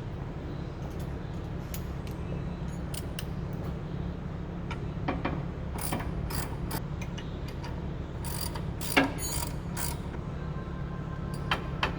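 Hand ratchet wrench clicking in short irregular spurts, with scattered metallic clicks of tools and parts under the car, over a steady low hum.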